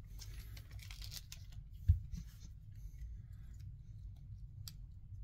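Faint crinkling of a torn foil booster-pack wrapper and the light ticks and slides of trading cards being handled and fanned through. A soft, dull thump comes about two seconds in.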